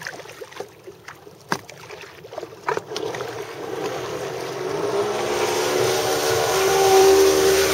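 Polaris MSX 140 personal watercraft with a freshly rebuilt engine running close by at speed, its engine drone and rushing water rising about three seconds in and loudest near the end. Before that, only a few scattered knocks.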